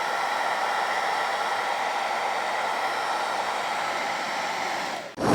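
Handheld hairdryer blowing steadily on its high heat setting; the sound cuts off abruptly a little before the end.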